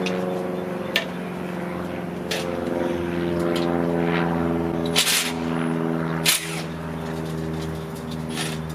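A steady motor hum holding one pitch, dipping slightly near the end, with a few sharp knocks or clicks over it.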